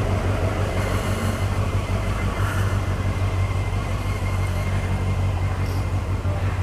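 Honda CBF600's inline-four engine running steadily at low revs as the motorcycle rolls slowly along.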